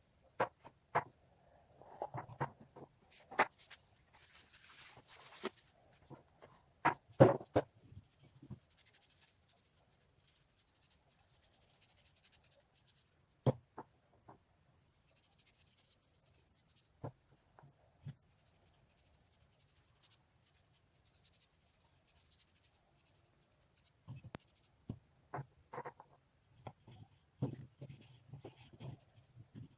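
Scattered light knocks and taps with short bouts of scraping and rubbing, as objects are handled and set down. The sounds bunch up in the first eight seconds and again over the last six, with a mostly quiet stretch between.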